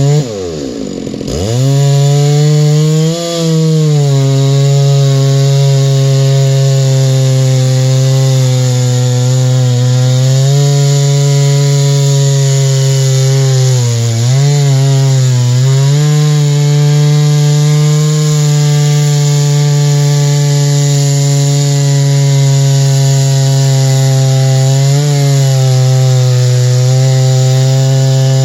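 Chainsaw mill ripping a white spruce log lengthwise, its engine held at high, steady revs under load through the cut. The pitch plunges and climbs back right at the start, and sags briefly a few more times as the chain bogs in the wood.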